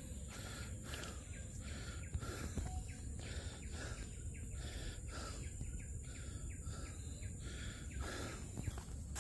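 Forest ambience: insects chirping in a steady repeating pulse, about two a second, over a low rumble.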